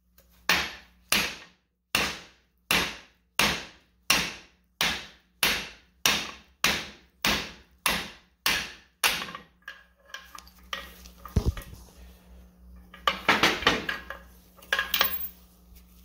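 A hammer strikes a deep impact socket set on the outer wheel bearing race in a front wheel hub, driving the race out: about sixteen sharp, evenly spaced blows, nearly two a second. After about nine seconds the blows stop and lighter clinks and clatter follow.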